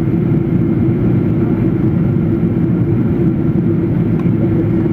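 Boeing 777 airliner's engines and airflow making a steady, loud rumble with a constant low hum.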